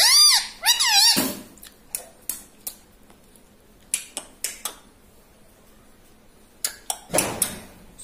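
Indian ringneck parakeet giving a quick run of loud whistled chirps in the first second, each note rising and then falling in pitch. A few short clicks follow, then a brief noisy rasp near the end.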